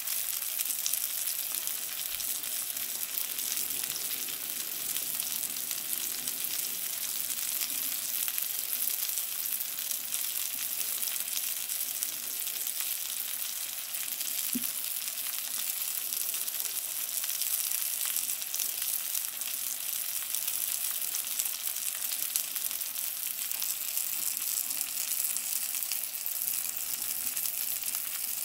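King mackerel steaks frying in butter in a nonstick pan: a steady sizzle, a high hiss flecked with fine crackles.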